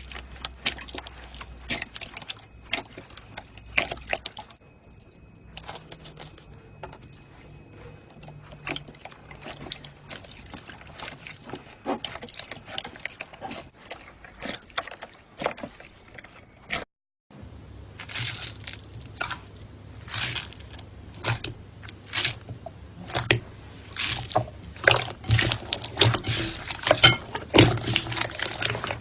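Slime being squished and pressed by hand, making irregular wet clicks, crackles and pops. The sound drops out briefly partway through, and after that the clicking comes louder and thicker.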